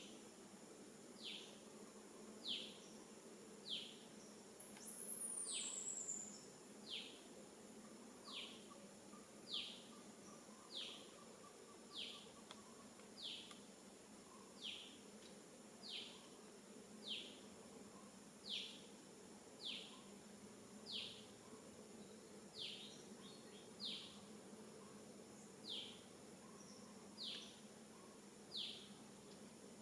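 A bird repeating a short, falling call note about once a second, over a faint steady high insect drone. A second, higher and faster falling trill comes in once about five seconds in.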